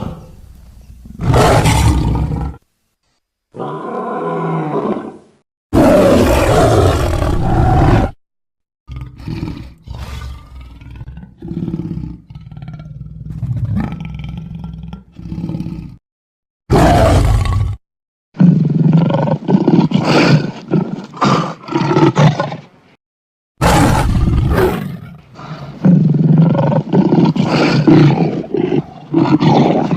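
A series of big-cat roars and growls, sound effects for the extinct sabre-toothed predator Barbourofelis, assembled from smilodon, cave lion and leopard sounds. They come as separate loud calls with short silences between them, a quieter stretch of growling in the middle, and longer roars in the second half.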